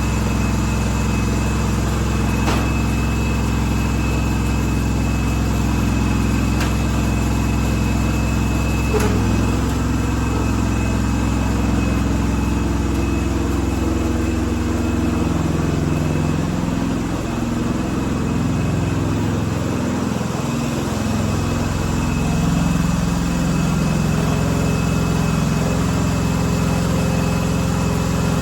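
Small garden-tractor engine running steadily at idle, with its speed wavering around the middle.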